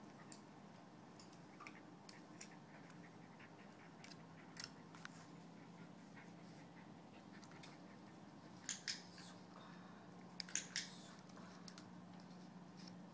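Quiet room with a low steady hum and scattered small sharp clicks. A single click comes about four and a half seconds in, a pair about nine seconds in, and a quick cluster of three about ten and a half seconds in.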